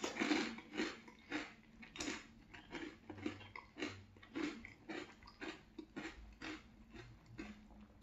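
A person chewing a spoonful of crunchy French Toast Crunch cereal with milk, crunching in an even rhythm of about three a second.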